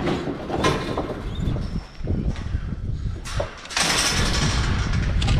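Metal hog-trap panels and livestock trailer rattling and knocking as feral hogs are loaded, with irregular knocks and a louder stretch of rattling from about four seconds in.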